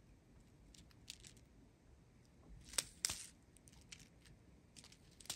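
Faint crinkling of a strip of small plastic zip bags with light clicking of resin diamond-painting drills shifting inside them: a few scattered soft rustles, the clearest about three seconds in.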